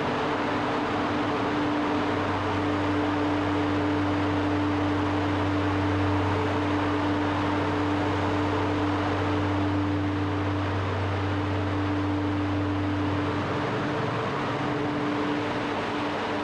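Steady machinery noise in a ship's well deck, with a constant hum throughout. A deeper engine drone comes in about two seconds in and stops about three seconds before the end.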